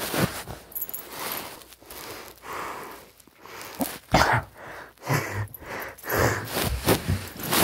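A dog snorting and huffing close to the microphone during rough play, a string of short, noisy breaths with a low grunt or two and rustling in between.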